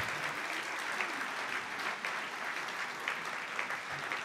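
Audience applauding, a dense, steady patter of many hands clapping in a hall.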